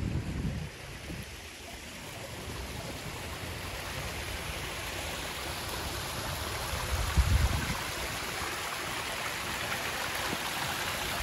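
Steady rush of running water, growing louder toward the end. Short low gusts of wind buffet the microphone at the start and again about seven seconds in.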